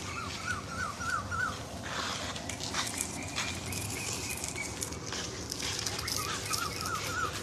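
An animal calling: a quick run of about five short rising notes, roughly four a second, heard twice, the second time near the end.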